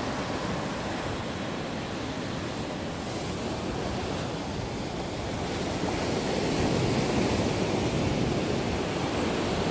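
Sea surf breaking and washing up a sandy beach: a steady rush of waves that swells louder about six seconds in.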